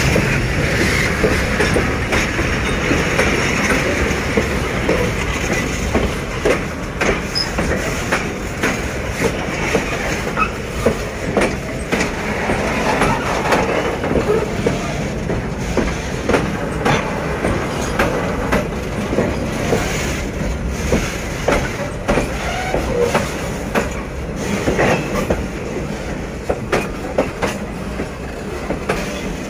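Freight wagons of an arriving train rolling past close by: steady rumbling of steel wheels on rail, broken by many irregular clacks as the wheels cross rail joints, with a high wheel squeal strongest in the first few seconds.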